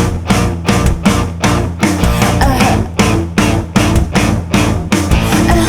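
Instrumental break of a rock song: drums, bass guitar and electric guitar playing a steady driving beat with no vocals.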